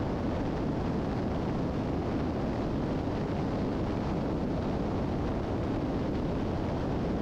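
Steady drone of the Piper Seneca III's twin piston engines and rushing air, heard inside the cabin in cruise flight.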